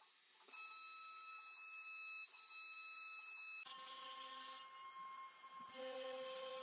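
CNC router's trim-router spindle running at high speed, a faint steady whine, as the bit cuts the outline of parts in a laminated wood board.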